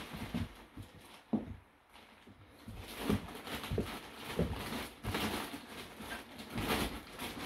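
Plastic wrapping rustling and crinkling in irregular bursts as it is pulled by hand off a compressed mattress-in-a-box, with a single knock about a second in.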